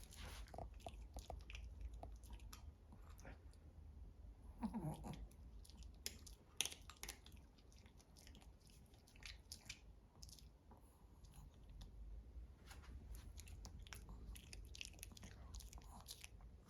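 Chewing and crunching: a scattered run of small, crisp crunches and clicks of food being eaten, over a low steady hum.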